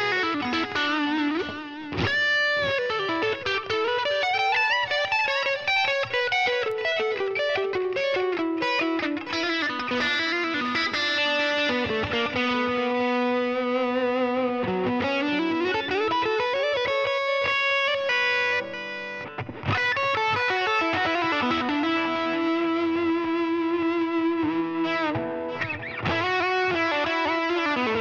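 Fender American Professional Stratocaster HH with Shawbucker pickups played through a Line 6 Helix Floor modeler with a distorted lead tone. It plays a single-note solo of long sustained notes with bends and slides, and breaks off briefly about two-thirds through.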